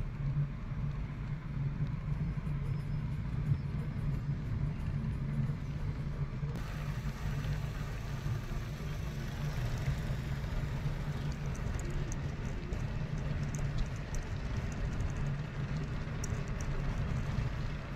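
Steady low rumble of a car's engine and tyres heard from inside the moving car. About six seconds in, a brighter hiss of rushing air and road noise joins it.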